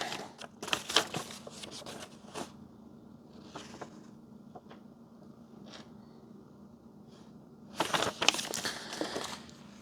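Paper and packing material rustling and crinkling as things are pulled out of a cardboard box, with scattered light clicks. A longer, louder burst of rustling comes near the end.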